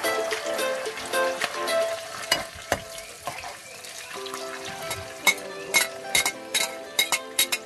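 Oil sizzling in a frying pan while a metal ladle stirs, with sharp clinks of the ladle against the pan from about five seconds in, as chopped onions are tipped in. Background music with steady tones plays underneath.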